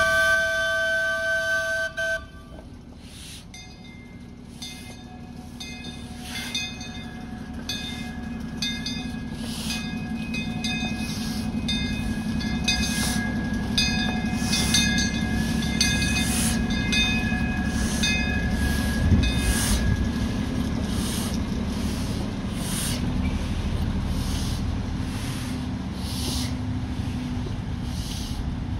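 Steam locomotive whistle giving one blast of about two seconds, then the 0-6-4T Torch Lake steam locomotive working with a steady beat of exhaust chuffs over a running rumble that grows louder through the first half.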